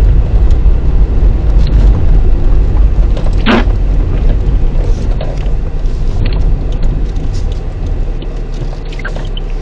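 Low, steady rumble of a Toyota Camry driving on a snow-covered road, heard from inside the cabin, with a short swish of the windscreen wiper about three and a half seconds in. The rumble eases off somewhat near the end.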